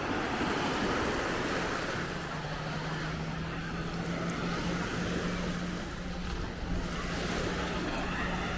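Ocean surf washing onto a beach, with wind buffeting the microphone and a steady low hum underneath.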